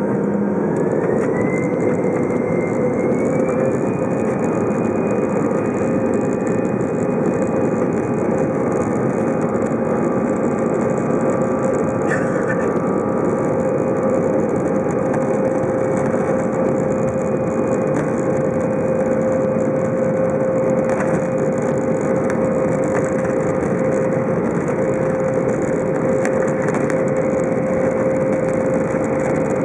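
Airbus A320 jet engines and cabin noise heard from inside the cabin while taxiing: a steady rumble with a hum. A whine rises in pitch over the first few seconds, then holds steady.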